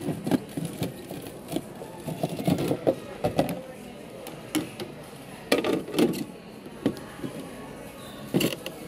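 Hard white plastic storage boxes knocking and clattering against each other as they are picked up and handled, a run of irregular sharp clicks and knocks.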